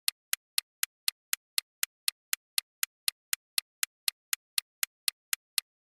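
Clock-ticking sound effect for a quiz countdown timer: crisp, even ticks about four a second, stopping near the end as the countdown runs out.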